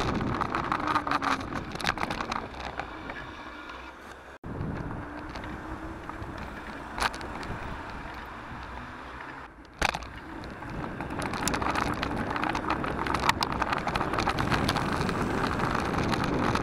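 Riding noise from a bike-mounted camera as a mountain bike rolls along wet, cleared town roads: wind rushing on the microphone, tyre hiss and car traffic alongside. The sound jumps abruptly twice, about four and a half and about ten seconds in.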